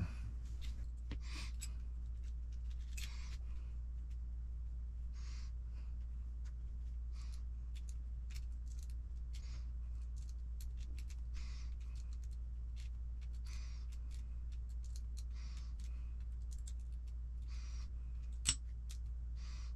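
Small plastic and metal parts of a Team Associated RC10T kit being handled and fitted by hand: scattered light clicks and brief scrapes as ball studs go onto the suspension arms, with one sharper click near the end, over a steady low hum.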